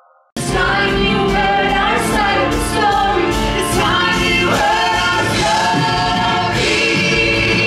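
Musical theatre cast singing together in harmony over a live band, recorded from the audience in the theatre. It cuts in suddenly just after the start and stays loud.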